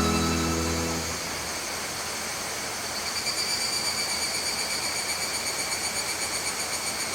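The tail of violin music fades out in the first second, leaving a steady high-pitched outdoor insect drone, most likely cicadas, that begins to pulse evenly about three seconds in.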